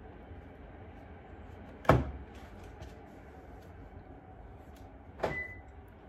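Two knocks against a car door panel: a loud one about two seconds in and a lighter one near the end, over a steady low hum.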